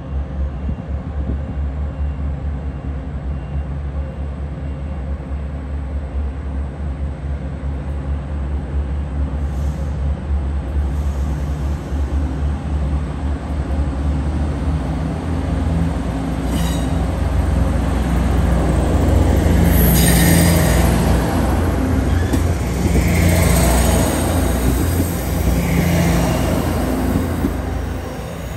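Diesel multiple unit railcar's engine running and pulling away, a heavy steady rumble that grows louder toward the middle. In the second half its engine note swells and eases off three times, with a few sharp clicks from the wheels.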